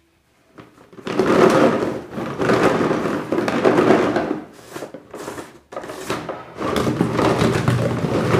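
Packaging wrapper crinkling and rustling as it is handled and torn open, in irregular spells with short pauses.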